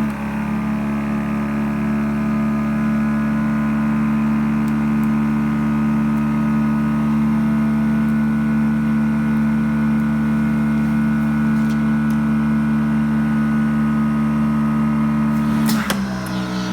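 OCA film laminating machine's built-in pump running with a steady, loud hum. It switches on abruptly and changes in tone with a click near the end.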